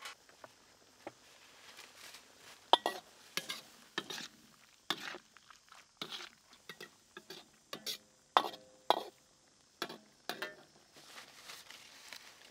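Stainless steel ladle stirring in a steel wok of simmering stir-fry, with irregular metallic clinks and scrapes against the pan, a few of them ringing briefly.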